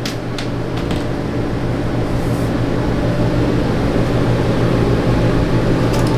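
Steady machine hum from a fan or air-conditioning unit, with a couple of light clicks at the start and near the end.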